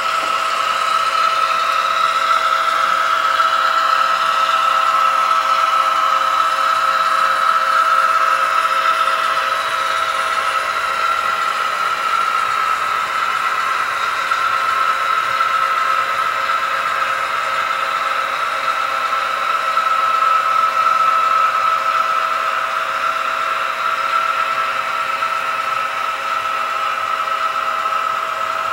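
Model diesel locomotive and train running on the track: a steady whirring motor whine with a faint rattle from the wheels and cars.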